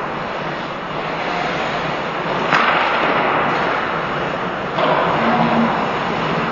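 Ice hockey play in a rink: a steady scraping hiss of skates on the ice, with a sharp clack of a stick or puck about two and a half seconds in, and the hiss growing louder a couple of seconds later.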